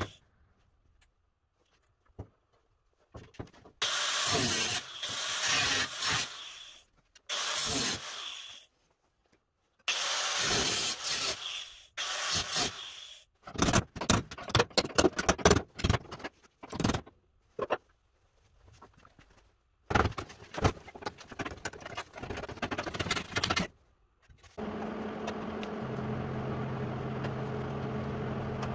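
Several bursts of scraping on the sheet metal of a 1953 Chevy truck cab, with a run of body-hammer strikes on the panel's window edge in the middle. A steady low hum starts near the end.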